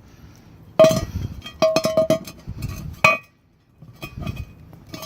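Several sharp metallic clinks: a strike about a second in, a quick cluster of four or five just after, another near the middle and one near the end, several leaving a short ring at the same pitch, as the metal shower-faucet parts are handled.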